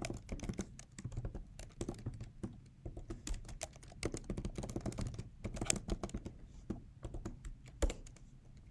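Typing on a computer keyboard: an irregular run of key clicks, with one louder keystroke near the end.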